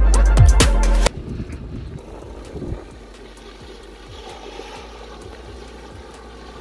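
Electronic music with a heavy beat stops abruptly about a second in. After it, a Honda Civic rolls slowly through a muddy puddle on a dirt track, its engine and tyres in the water heard faintly under wind on the microphone.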